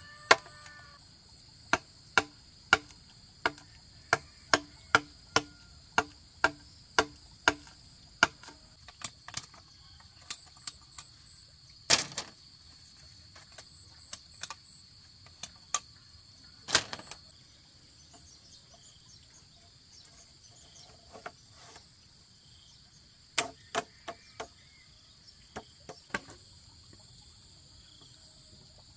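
A run of sharp knocks, about two a second, that thins after about eight seconds into scattered blows, two of them louder, over a steady high-pitched chorus of insects chirring.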